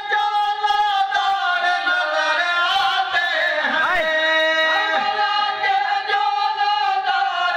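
A man singing a long, drawn-out melismatic line of an Urdu devotional poem about Karbala's mourners into a microphone. The notes are held steady, then bend and waver around the middle.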